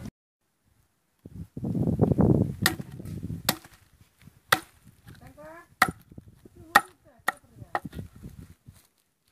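Sharp chopping strikes on wood, about seven blows at uneven intervals, typical of cutting food with a knife on a wooden block. A burst of low rumbling noise comes in the first seconds, and a short wavering call is heard in the middle.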